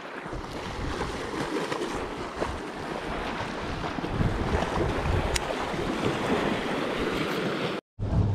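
Wind buffeting the microphone over water lapping and splashing, a steady rough rush with a few faint clicks. The sound cuts out for an instant near the end.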